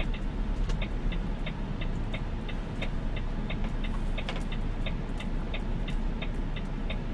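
Truck's indicator (blinker) ticking steadily, about three ticks a second, over the low running of the Volvo truck's diesel engine, heard inside the cab.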